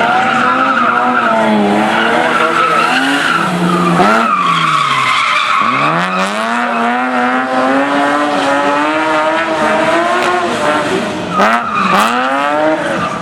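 BMW E34 5 Series engine revving hard through a drift, its pitch rising and falling, with tyres squealing. The revs fall sharply about four seconds in and again near the end, each time climbing back up.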